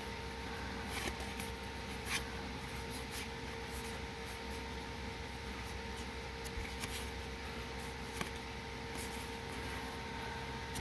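Faint, irregular clicks and slides of foil Magic: The Gathering cards being flicked through one at a time in the hand, over a steady low electrical hum.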